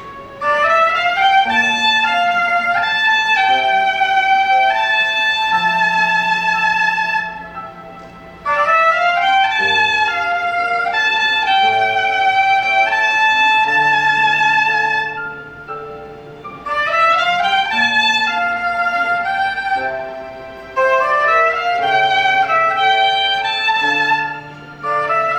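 Soprano saxophone playing a slow melody with vibrato over sustained accompaniment, in phrases separated by short breaths.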